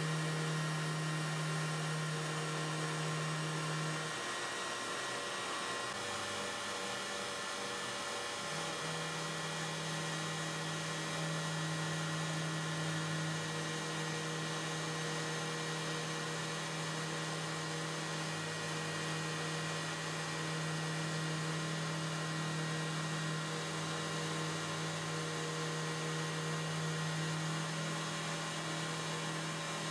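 CNC router spindle running steadily while a small bit cuts an outline into carbon fiber sheet: a steady hum with a fainter high whine. The hum wavers and shifts in pitch for a few seconds about four seconds in, then settles again.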